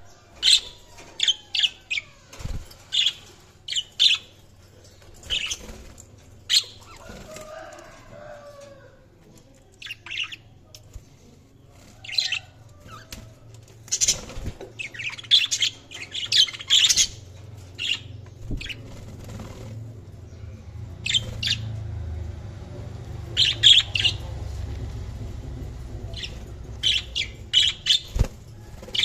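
Budgerigars chirping: many short, sharp, high chirps and squawks in quick clusters, with short pauses between the clusters.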